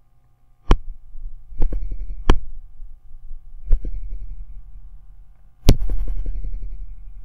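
Stylus taps and knocks on a writing tablet: five sharp taps, each with a low thud behind it, the last one loudest, over a faint steady hum.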